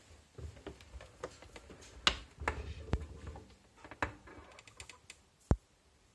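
Irregular clicks and sharp metallic knocks from handling a Mini Gaggia lever espresso machine, with a low rumble between knocks about two to three and a half seconds in.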